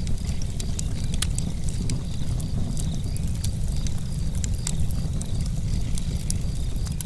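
Outdoor ambience: a steady low rumble, like wind buffeting the microphone, with scattered sharp crackles and faint, evenly repeating high chirps.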